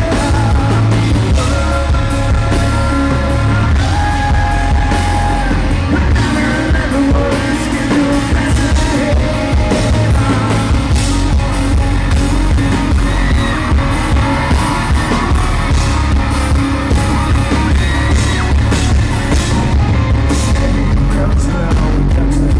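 Live rock band playing loudly: drums keeping a steady beat under bass and electric guitars, with a male lead vocal singing.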